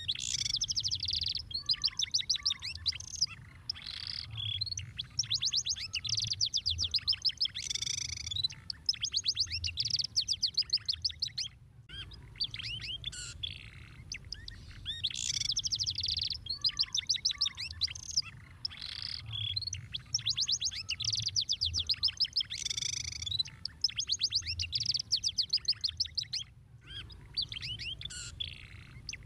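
Domestic canary singing: long phrases of fast, rapid-fire trills and chirps, broken by short pauses every few seconds.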